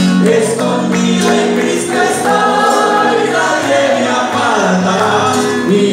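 Live Christian gospel song: several voices singing together over a sustained bass line and string accompaniment.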